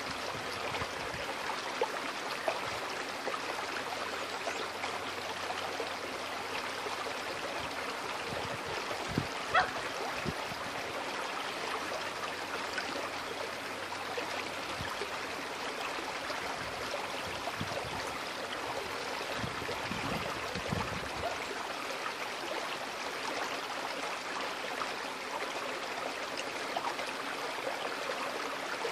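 Small, shallow creek babbling steadily over stones. A single sharp click stands out about ten seconds in.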